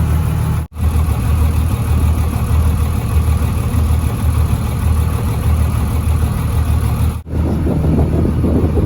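Boat engine running steadily, a low even hum. The sound drops out for an instant twice, about a second in and near the end, and a rougher rushing noise joins in over the last two seconds.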